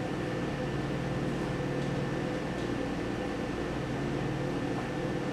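Steady machine hum with a few low steady tones over a light hiss, even throughout, like a fan or household appliance running.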